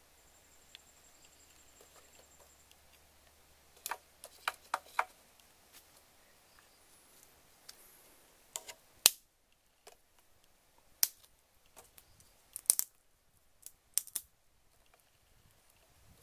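Dry sticks snapping and wooden firewood knocking as it is laid into a clay cook stove: a handful of sharp, separate cracks, four in quick succession a few seconds in, then single ones every second or two.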